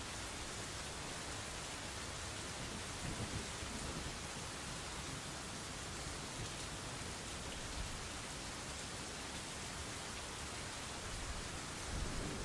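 Steady rain: an even hiss of falling rain, with brief low rumbles about three seconds in and again near the end.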